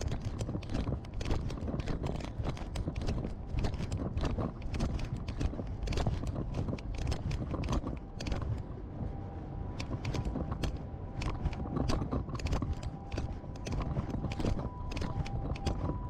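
Footsteps on pavement: a steady run of shoe clicks from someone walking, with the low rumble of a camera being carried. From about halfway through, a faint two-note siren comes in under the steps.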